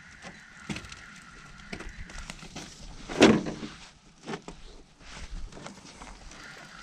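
Scattered knocks and clicks of gear and movement in an aluminum boat, with one loud thump about three seconds in, over a faint steady high hum that fades out partway through.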